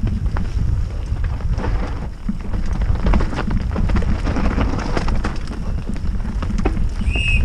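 Mountain bike descending a rough dirt trail at speed, with wind buffeting the helmet camera's microphone: tyres drumming over roots and stones and the bike's chain and frame clattering in quick, irregular knocks. A brief high squeal near the end.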